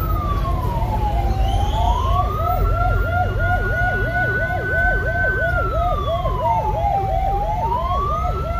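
Two police sirens sounding at once: one slow wail that glides down, back up, holds, then falls and rises again, and a fast yelp at about three cycles a second, over the low rumble of vehicle engines.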